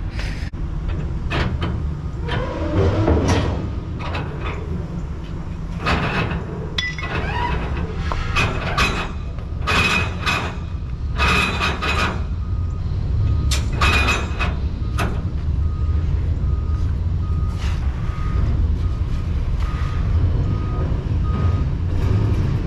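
A truck engine idles with a low, steady rumble while metal clanks and rattles from chains and strap hooks being handled come in a string through the middle. For the last seven seconds a vehicle's reversing alarm beeps steadily, about once every 0.7 seconds.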